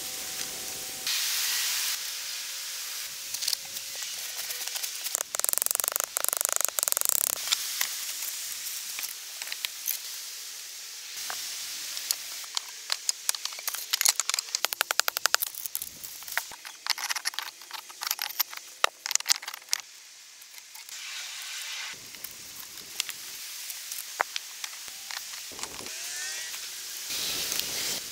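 Hand work with thin hazel branches and sticks, cut together in short segments: twigs rustling and scraping as they are woven, with bursts of sharp clicks and knocks as sticks and poles are set in place, and wet mud being pressed onto the woven branches near the end.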